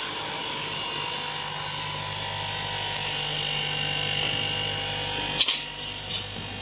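CNC Low-E coating deleting machine running, its motor-driven wheel head rubbing the coating off the glass edge with a steady whirring grind and a steady whine. About five seconds in there is a sharp click, after which the sound drops to a quieter run.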